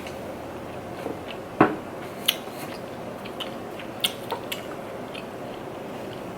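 Close-up eating sounds: soft chewing with a few scattered clicks and taps, the loudest about one and a half seconds in.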